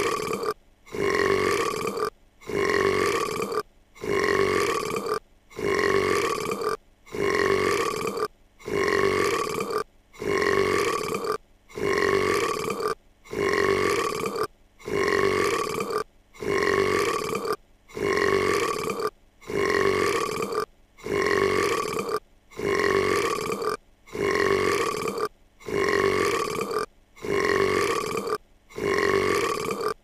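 A cartoon girl's long voice-acted burp, the same one repeated over and over in a loop, about one every second and a half with a short silent gap between them.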